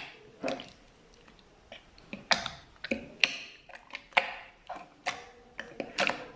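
Slime being squished and pressed by hand, making sticky clicks and pops at irregular intervals, a few each second.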